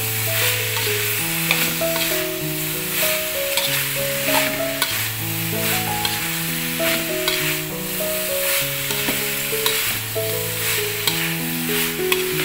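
Sliced cucumber, carrot and green beans sizzling as they are stir-fried in a wok, with a metal spatula scraping and tapping the pan now and then. Background music of slow, held notes plays alongside.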